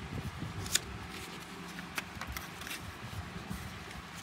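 A page of a hardback picture book being turned and handled: a few short paper clicks and rustles, the sharpest just under a second in and another at about two seconds, over a faint steady background.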